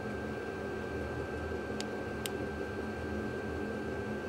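VEVOR diesel air heater running, its blower giving a steady whir with a thin high whine over it. Two quick clicks come about two seconds in, from buttons being pressed on the heater's handheld remote.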